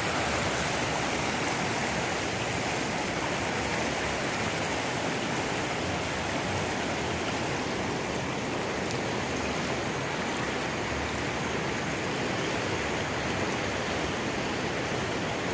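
Swollen, muddy floodwater of a river rushing past in a steady roar.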